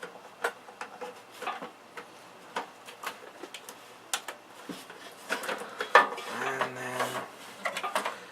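Irregular clicks, taps and rattles of PC power supply cables and their plastic connectors being handled and routed inside a computer case, with a sharper click about six seconds in. A short, steady low hum follows it for under a second.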